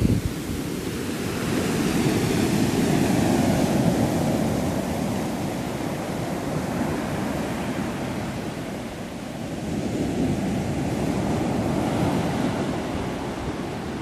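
Mediterranean surf breaking and washing up a sandy, pebbly shore in slow surges, swelling twice as waves run up the beach and drain back.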